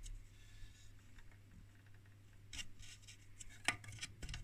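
Faint handling noise: a few small clicks and rubs of fingers on the metal box of an opened electronic instrument, the sharpest click near the end, over a low steady hum.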